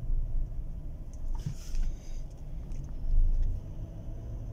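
A 2015 Chevrolet Tahoe's V8 engine pulling gently in first gear, heard from inside the cabin as a steady low rumble with the revs slowly rising, while its automatic transmission is road-tested for normal shifting after a fresh fluid change. A short hiss comes about a second and a half in.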